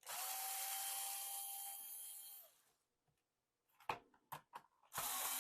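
Small electric screwdriver running in two bursts, backing out screws to open the housing: a steady motor whine over a hiss for about two and a half seconds, then, after a few light clicks, a second run starting near the end. The whine drops slightly as the motor stops.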